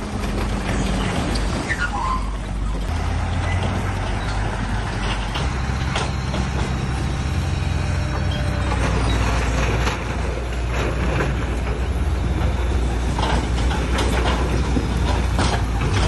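Heavy diesel earth-moving machinery, bulldozer and dump trucks, working stone. A low engine drone shifts up in pitch about three seconds in and again past eight seconds, with a brief squeal near two seconds and sharp clanks now and then.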